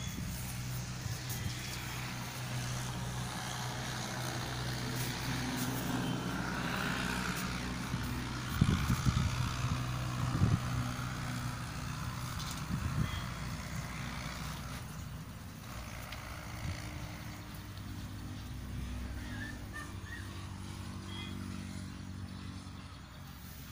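A steady low engine or motor hum, shifting slightly in pitch about two-thirds of the way through, with a few knocks around nine to ten seconds in.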